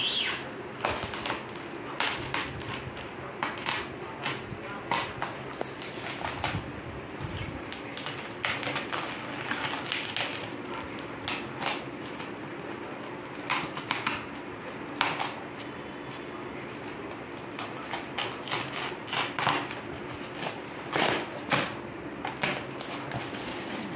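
Plastic wrapping and foam packing being cut and torn open on a parcel with a box cutter: irregular crackling, rustling and sharp clicks, over a faint steady hum.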